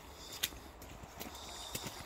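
Footsteps on a wet, muddy path: a few scattered, irregular steps.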